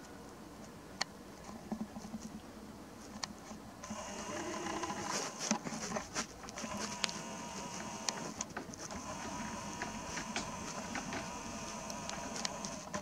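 Nikon P900 bridge camera's lens motor heard through its built-in microphone: a few clicks, then from about four seconds in a steady whirring motor with scattered clicks, as the lens zooms and focuses on a faint point of light.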